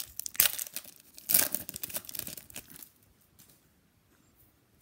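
Shiny foil wrapper of a Panini Prizm Collegiate Draft Picks card pack being torn open and crinkled, loudest in two bursts in the first second and a half. It stops about three seconds in, leaving only a few faint clicks of card handling.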